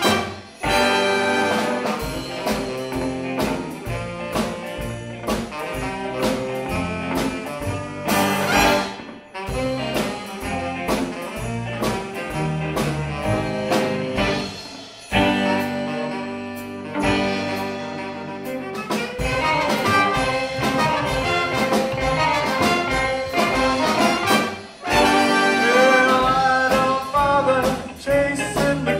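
Live rockabilly swing band playing an instrumental passage: horns (trumpet and saxophone) over upright bass, drums and electric guitar. The band drops out briefly a few times for stop-time breaks.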